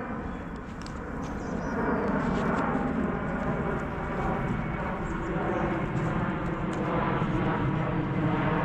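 A steady engine drone that gets louder about two seconds in and holds.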